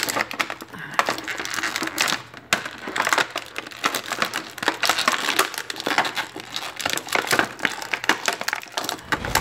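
Clear plastic packaging bag crinkling and crackling irregularly as hands pull an action figure and its plastic parts out of it.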